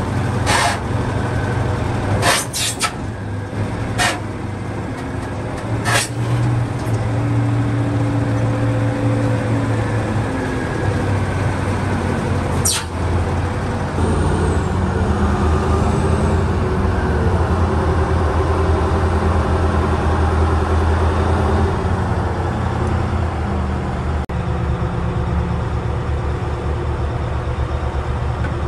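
Caterpillar 988B wheel loader's big V8 diesel engine running and working under load as it handles a marble block, its pitch shifting and rising for several seconds around the middle. A few short, sharp sounds come through in the first few seconds, and one more near the middle.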